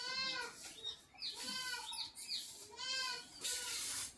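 Three short, high-pitched animal calls about a second and a half apart, each quavering, with a brief hiss near the end.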